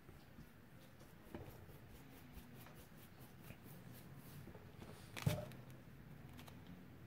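Faint scratching and swishing of a flat paintbrush spreading thinned oil paint over a painting panel and dabbing it on the palette, with one sharper knock about five seconds in.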